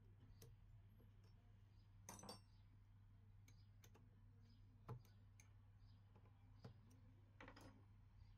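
Faint metallic clicks and clinks as a hex key and tool post parts are handled on a small lathe's tool post, over a low steady hum. The sharpest knock comes about five seconds in, and there are short clusters of clinks near two seconds and near the end.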